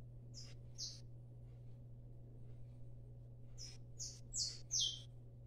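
Pen writing large letters on paper, each stroke giving a short high squeak: two strokes near the start, then a quick run of four near the end.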